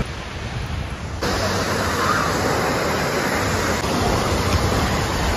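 Steady rush of water from a water-park wave pool, with waves washing in and a waterfall pouring, under faint distant crowd voices. A little over a second in it turns louder and brighter.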